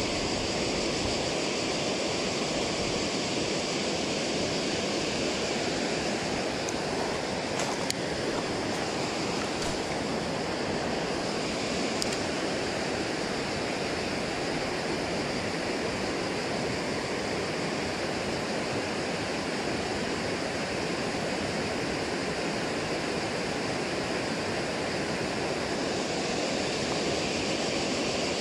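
Steady rush of water pouring over a river weir's spillway, with a few light clicks near the middle.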